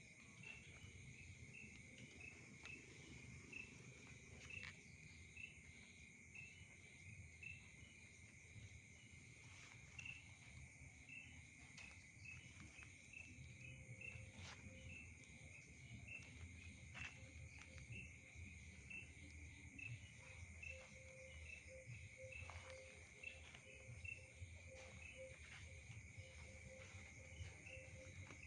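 Faint night-time insect chorus: a steady high trill with chirps repeating about twice a second. A lower pulsing call joins about halfway through, over a low background rumble.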